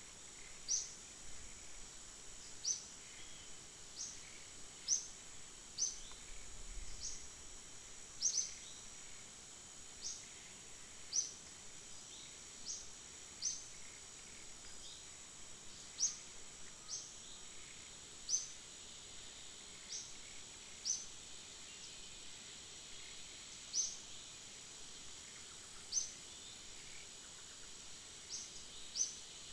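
Outdoor ambience of a steady, high insect drone. Short, sharp, high-pitched chirps repeat at irregular intervals of about one to two seconds over it.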